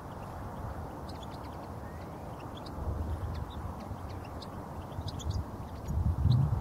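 Goldfinches twittering in scattered, high, short chirps over a low wind rumble on the microphone, which gusts louder near the end.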